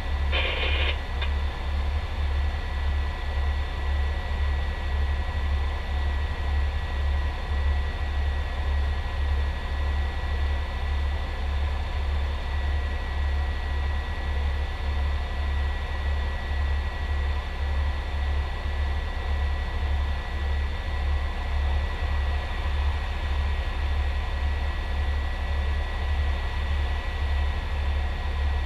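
Fire truck's diesel engine idling, heard from inside the cab: a steady low throb pulsing about twice a second, with a faint steady whine above it.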